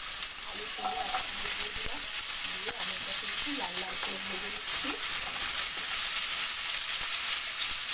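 Potato and pumpkin cubes sizzling as they fry in hot mustard oil in a non-stick pan: a steady frying hiss, with a wooden spatula stirring them now and then.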